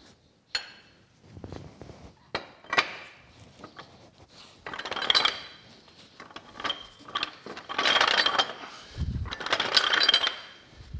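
Cast-iron parts of an old cane mill being fitted together by hand: a few sharp metal clinks and knocks, then several longer spells of metal-on-metal scraping and rattling as a casting is worked down onto the top of the upright shaft.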